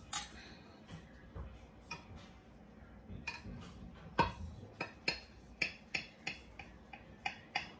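Metal knife and fork clicking against a glass baking dish while cutting a baked banana bread. The clicks are sharp and irregular: a few faint ones at first, then about a dozen louder ones from a few seconds in.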